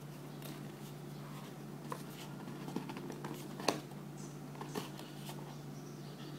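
Fingers handling a cardboard phone box and lifting its lid off: light scrapes and a few sharp clicks, the loudest a little past the middle, over a steady low hum.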